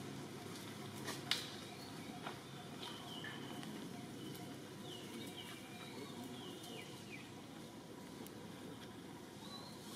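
Outdoor ambience with a steady low background noise and faint, short, high chirping calls scattered through the middle and near the end, with one sharp click about a second in.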